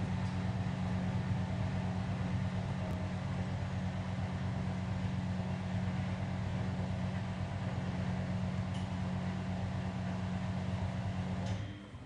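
Miele Novo Duo washing machine in its final spin: a steady, even hum at constant drum speed, which drops away sharply near the end.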